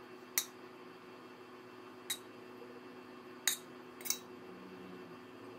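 Four short, sharp clicks over a low steady hum, as coconut cream is drizzled from a small stainless steel pot.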